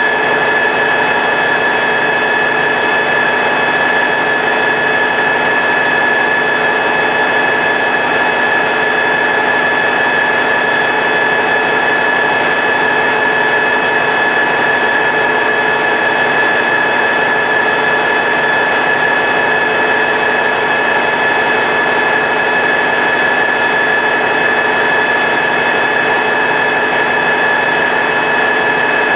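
Diesel locomotive idling: a steady engine drone with several high, unchanging whining tones.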